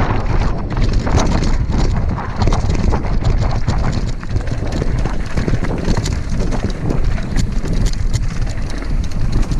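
Wind buffeting the microphone of a camera riding along on a mountain bike, over a steady stream of knocks and clatter from the tyres and bike on a rough dirt trail.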